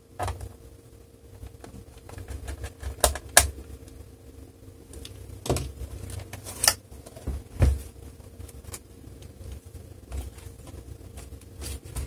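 Plastic laptop case being handled on a desk: scattered clicks and knocks as the bottom cover's edges are pressed and the laptop is turned over and opened.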